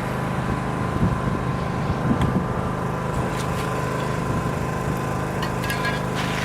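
A motor running steadily with a low hum, with a few light knocks early on and a burst of small clicks near the end.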